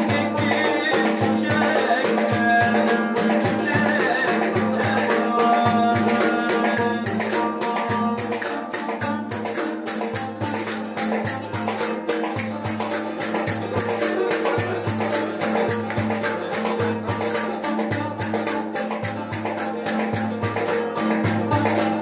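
Live Turkish folk dance music: a cümbüş plucked in a fast tune, over a davul bass drum that keeps a steady beat of low thuds and quick, sharp stick clicks.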